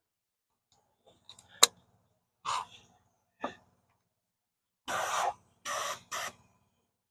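A sharp click, then several short rasping strokes of 320-grit sandpaper rubbed over the alloy wheel's rim to take out curb rash. The last three strokes come in quick succession.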